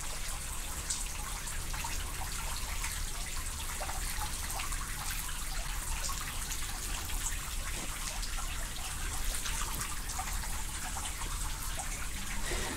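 Steady hiss of radio static full of rapid crackling clicks over a low hum, from a ghost-hunting spirit box sweeping through radio stations.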